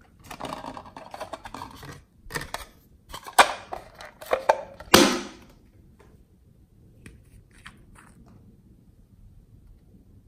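Hands handling a plastic slime container and a small glass dropper bottle: about two seconds of crackly rustling, then a handful of sharp clicks and knocks, the loudest about five seconds in.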